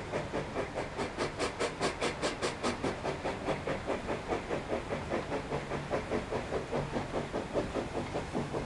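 Steam engine of the paddle steamer Oscar W working under way, giving a steady rhythmic chuffing beat of about four a second with steam hiss on each beat, the hiss strongest a second or two in.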